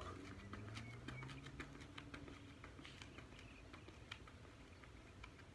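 Faint, irregular patter of sneakers scuffing and tapping on pavement during side shuffles, getting fainter as the runner moves away.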